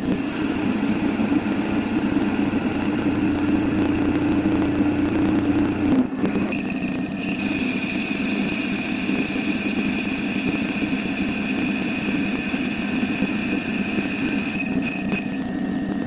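Metal lathe running and turning a metal workpiece, a steady mechanical hum with a whine from the machine. The sound changes abruptly about six seconds in, after which a steady high whine runs until near the end.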